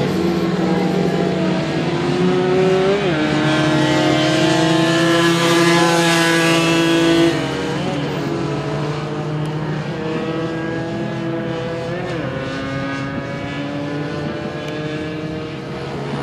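Small-displacement racing motorcycles running on track, several engines overlapping, their pitch rising and falling as riders accelerate and shift gears. The sound is louder for the first seven seconds or so, then drops in level.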